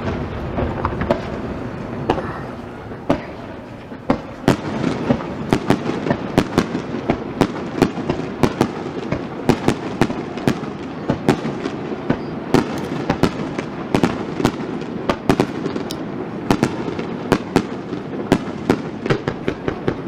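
Aerial fireworks bursting in quick, irregular succession: sharp cracks and bangs several a second over a continuous rumble. There is a short lull about four seconds in, then the bursts come thicker.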